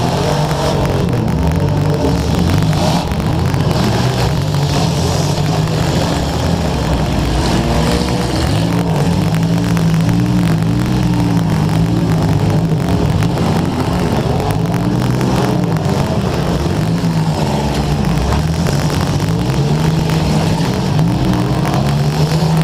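Demolition derby cars' engines revving hard, several at once, their pitch rising and falling constantly. A crackle of static runs over it from a wet GoPro microphone.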